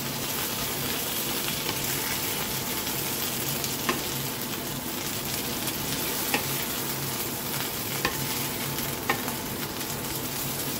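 Chicken breast pieces sizzling in hot sunflower oil in a frying pan. A wooden spatula scrapes and taps the pan a few times as the pieces are lifted out.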